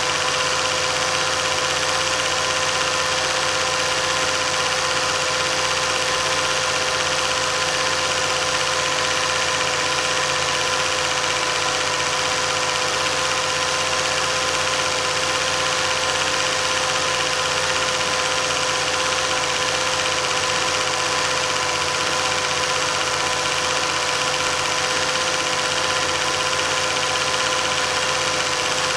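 Cine film projector running steadily: an even mechanical whirr with a constant hum and hiss that never changes.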